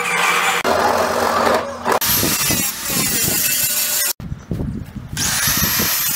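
Power tools heard in short, abruptly cut segments: a drill press boring through a thin wooden panel, then an angle grinder fitted with a sanding disc whining as it grinds down a wooden dulcimer top to shape it.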